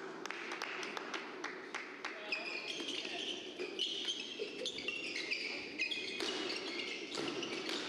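Badminton doubles rally: a quick run of sharp racket hits on the shuttlecock, and court shoes squeaking on the court mat, over a steady murmur of the hall.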